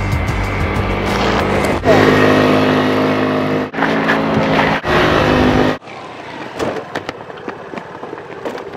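Music ends about two seconds in and gives way to a motor scooter's engine running steadily. The engine cuts off suddenly a little past halfway, leaving only a faint background with a few light clicks.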